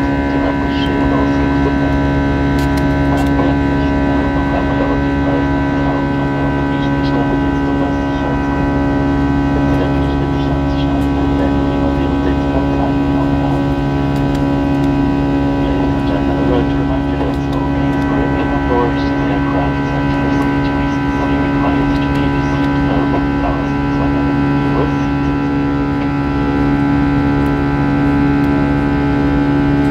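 Airbus A320-214's CFM56 turbofan engines heard from inside the cabin during the climb after takeoff: a loud, steady drone with a strong low hum and several steady tones over a low rumble.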